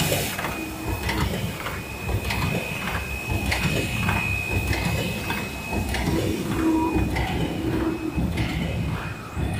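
MYZG-100 paper lid making machine running: a continuous mechanical clatter of repeated knocks and clicks from its forming stations, over a steady high whine.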